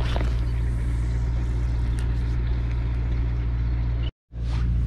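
Steady low rumble with a constant hum, broken by a brief cut to silence about four seconds in.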